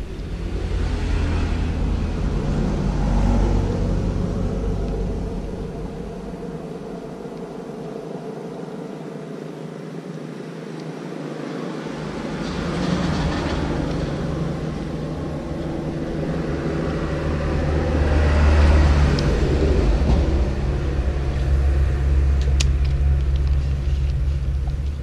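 Road traffic passing close by: several vehicles go by one after another, each a rumble that swells and fades, with a short lull in the middle.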